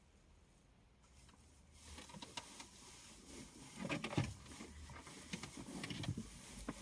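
Electrical wire being handled and pulled through the car's interior: light rustling with small clicks and knocks, starting about two seconds in.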